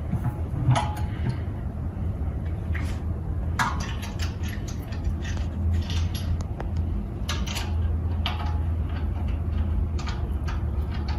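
Scattered metallic clinks and knocks of bolts, a socket and a wrench being handled while the fan motor is bolted to its pedestal, over a steady low hum.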